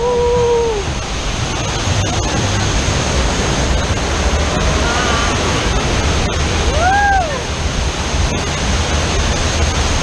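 Steady rush of water cascading down a tall artificial waterfall and churning around a rapids raft. Short cries from riders break in at the start and again, rising and falling, about seven seconds in.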